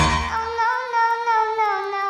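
Background music: a sustained, wavering melody with singing-like notes over a held low tone, starting with a sharp hit.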